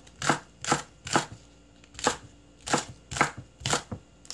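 Chef's knife slicing a green onion into rounds on a wooden cutting board. Each stroke ends in a sharp knock of the blade on the board, about eight strokes at roughly two a second in an uneven rhythm.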